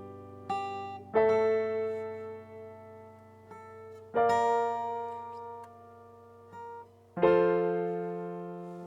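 Instrumental music: slow, sustained keyboard chords struck about every three seconds, each ringing and slowly fading, with a brief lighter note just before each new chord.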